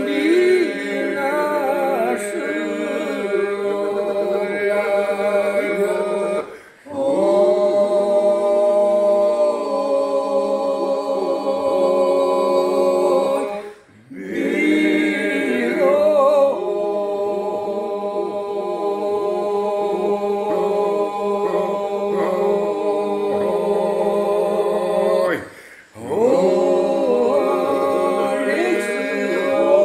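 Unaccompanied Vlorë-style Albanian polyphonic singing: a lead voice and a second voice weaving over a steady sung drone. It runs in long phrases with short breaks for breath about 7, 14 and 26 seconds in.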